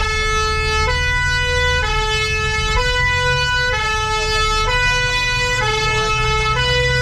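Two-tone 'pin-pon' siren horn sounded from a converted truck, switching between a higher and a lower note about once a second, like a French emergency vehicle. The truck's engine runs underneath.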